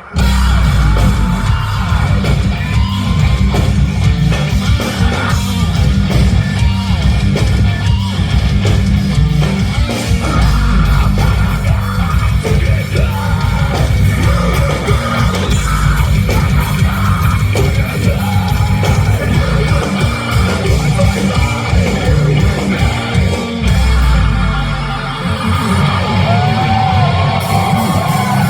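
Rock band playing live at full volume: heavy distorted guitars, bass and drums, with shouted and sung vocals.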